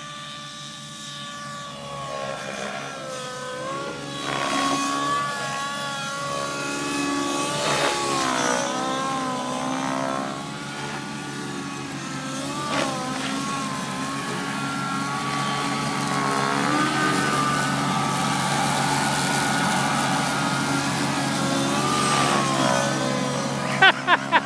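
Align T-Rex 700 radio-controlled helicopter in flight, its rotor and drivetrain whine rising and falling in pitch as it manoeuvres. It gets louder over the first few seconds.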